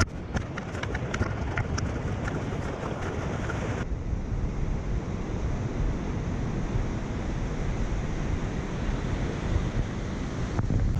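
Wind buffeting the microphone over surf breaking on rocks, a steady low rumble. Scattered light ticks in the first four seconds; about four seconds in the high hiss drops off abruptly.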